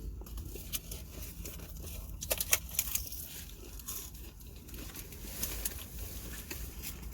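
Fast-food paper packaging crinkling and tearing as food is handled, with scattered small clicks and a busier cluster of crackles about two and a half seconds in, over a low steady rumble.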